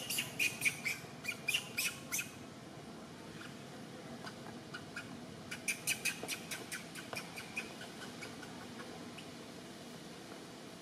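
Rapid runs of short, high-pitched animal chirps, about five a second: one run ending about two seconds in, and another a few seconds later lasting about two seconds.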